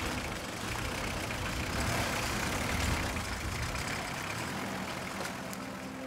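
A UAZ off-roader's engine running at low speed as it drives through a shallow, rocky stream, with water splashing and churning under the wheels. Faint music comes in near the end.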